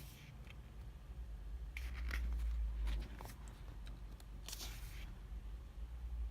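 Glossy photobook pages being turned and handled, a few short paper rustles, over a steady low street-traffic rumble that swells about two seconds in.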